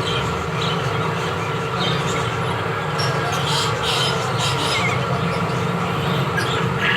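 A steady mechanical hum runs throughout. Over it, a common mynah makes short, high chirps and whistles, bunched between about three and four and a half seconds in.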